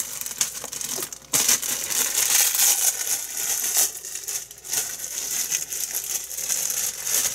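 Plastic bread bag crinkling as it is opened and handled to take out slices of sliced bread, getting louder about a second in.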